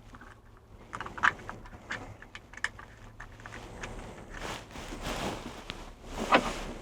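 Small clicks, taps and rustling as plastic and metal mount parts and screws are handled, with a louder knock near the end.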